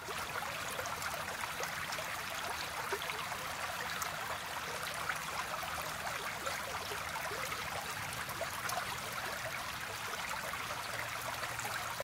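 Steady sound of flowing water, a dense trickling and babbling like a stream, starting suddenly and holding level throughout.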